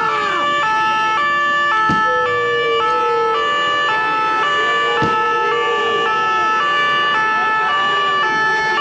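Loud French two-tone emergency siren ('pin-pon'), switching steadily between a high and a low note a little more than every half second.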